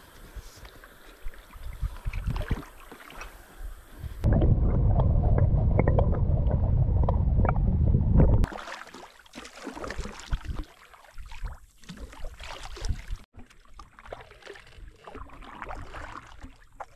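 Kayak paddling on a river: irregular splashes and drips of water from paddle strokes against the hull. About four seconds in, a loud, muffled rush takes over for roughly four seconds, then the splashing resumes.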